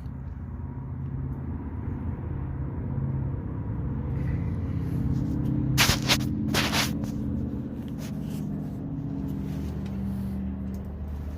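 A vehicle engine idling with a steady low rumble. Two short hissing bursts come about six seconds in.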